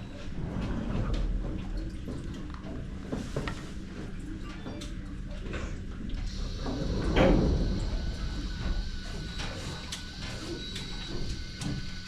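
Background sound inside a dome fishing boat: a steady low hum with scattered small clicks and knocks, and a louder rustling knock about seven seconds in. From about halfway a steady high whine sets in and continues.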